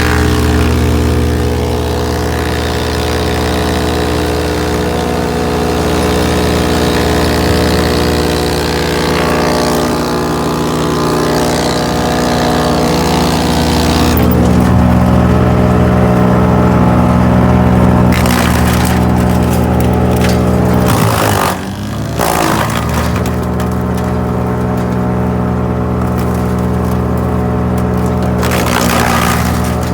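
GreenMech Arborist 150 wood chipper running steadily, with noise above the engine note for long stretches. About two-thirds of the way through, the engine speed drops sharply and then picks back up.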